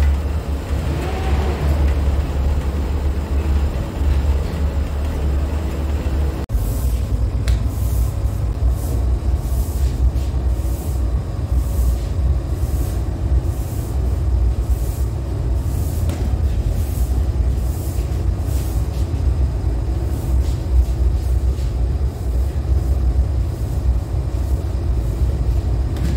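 Commercial spiral dough mixer running, its motor giving a steady low hum as the hook turns through flour and dough in the steel bowl. From about six seconds in, a faint regular beat repeats about one and a half times a second.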